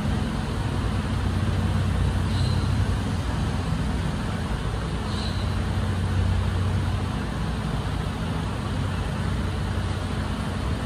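Garbage truck engine idling steadily with a low, even hum.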